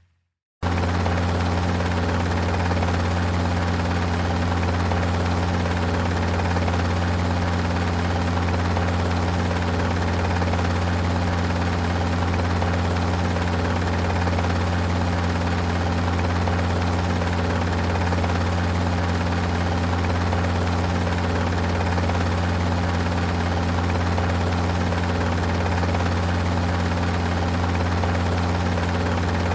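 Helicopter running steadily, starting abruptly about half a second in, with a strong constant low tone and no rise or fall in pitch or loudness.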